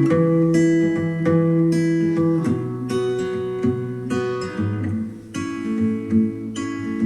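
Acoustic guitar music, strummed chords about twice a second, played back through a powered desktop speaker for a sound test.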